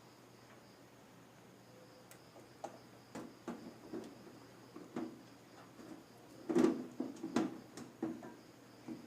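Computer case shell being handled and fitted back on: scattered light clicks and knocks that start about two seconds in, with two louder knocks about two-thirds of the way through.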